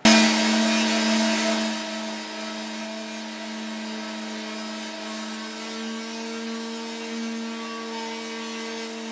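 Handheld electric sander running on a wooden guitar body: a steady motor hum over a hiss of sanding. The hiss is loudest for the first two seconds and then settles lower.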